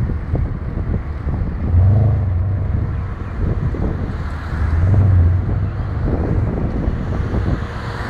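Porsche Panamera 4S engine, heard from behind, running as a low rumble that swells louder twice, about two and five seconds in, with wind buffeting the phone's microphone.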